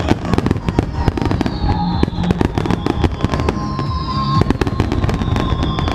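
Fireworks going off in a dense barrage: rapid bangs and crackles, with high whistles that slowly fall in pitch.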